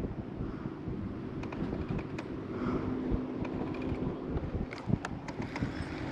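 Wind buffeting the microphone, with a faint steady hum in the middle and a few light clicks.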